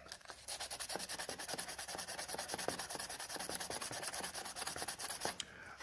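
Coarse-grit sandpaper rubbed by hand over a welded seam in a camping-car's plastic trim piece, in quick, even back-and-forth strokes, knocking down the melted-plastic burrs left by the welding. The strokes start about half a second in and stop shortly before the end.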